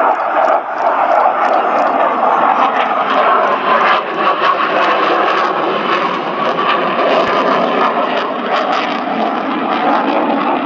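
MiG-29 Fulcrum's twin Klimov RD-33 turbofans running at high power through aerobatic manoeuvres: a loud, steady jet roar, with a tone that slowly falls in pitch partway through.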